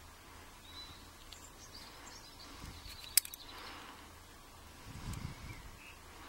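Quiet handling of small padlock parts as the pins are taken out of the lock, with one sharp metallic click about three seconds in.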